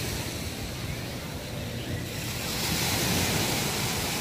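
Small ocean waves breaking and washing up on a sandy beach, the wash swelling louder about halfway through, with wind rumbling on the microphone.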